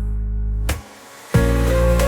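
Background music with sustained chords that cuts out briefly a little under a second in and comes back on a new chord about half a second later.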